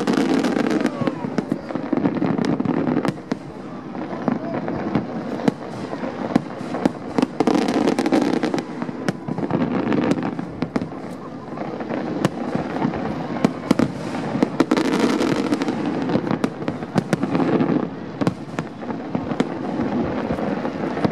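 Aerial fireworks display: a dense, irregular stream of sharp bangs and crackling shell bursts that goes on without a break.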